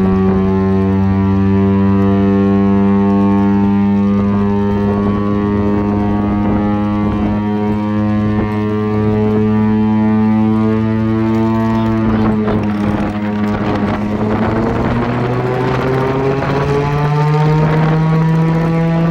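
Chrysler air raid siren, its three-stage blower driven by a Hemi engine, sounding a loud, low, steady tone rich in overtones. About twelve seconds in the pitch sags and the sound turns rough, then it climbs again near the end.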